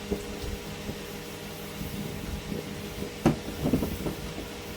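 A cover panel being handled and fitted: a sharp knock about three seconds in, then a few softer knocks, over a steady electrical hum.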